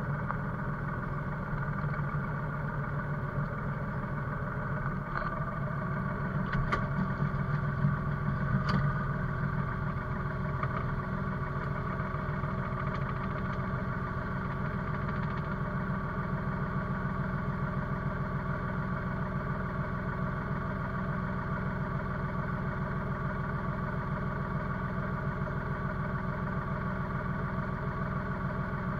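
Forest machine's diesel engine running steadily at idle, heard from inside the cab, with a few sharp knocks and a short rise in level between about five and nine seconds in.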